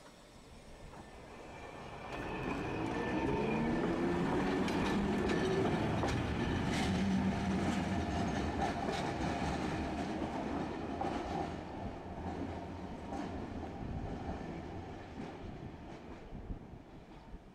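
Tosaden streetcar No. 210 pulling away: its motor whine rises in pitch as it accelerates, with wheels clicking over rail joints, and the sound fades as the tram recedes.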